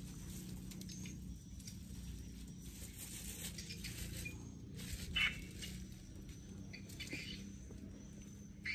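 Faint outdoor background with scattered light rustles and scuffs of hands and rubber boots in loose garden soil, and one brief louder scuff about five seconds in.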